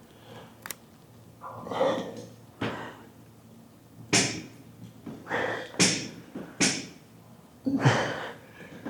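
A man's sharp, forceful breaths, mostly exhales through the mouth, about one a second, in time with the reps of a dumbbell lateral raise. There is one brief click near the start.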